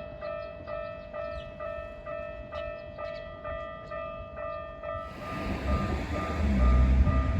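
Japanese level-crossing warning bell ringing, about two dings a second. From about five seconds in, a Keikyu 1500-series electric train passes over the crossing, its rumble growing loud near the end while the bell keeps ringing.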